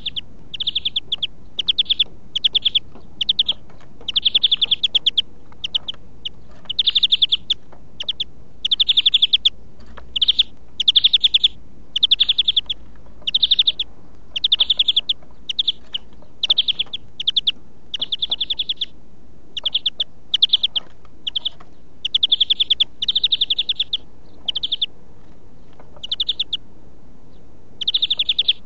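European greenfinch singing: short, rapid trilled phrases repeated about once a second with brief pauses between them, over a steady low hiss.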